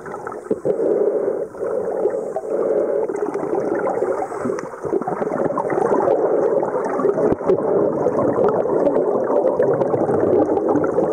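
Continuous muffled gurgling and bubbling of water, heard underwater, with many small clicks and pops.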